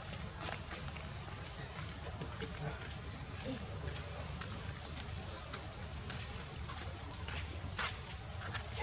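A steady, high-pitched chorus of forest insects, droning on two unbroken high tones, over a low steady rumble.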